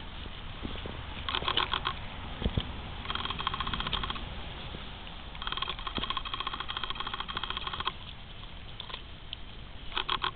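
Dog chewing fresh sweet corn on the cob, crunching through the tender cob itself, in several bouts of rapid crunching with short pauses between.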